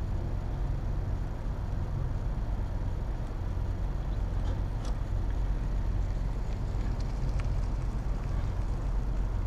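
Steady low rumble of vehicle engines and traffic around a truck-stop fuel station, with a few faint clicks midway.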